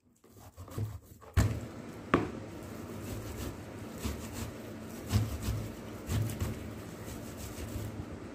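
A few sharp knocks or clatters over a steady noise that sets in just over a second in.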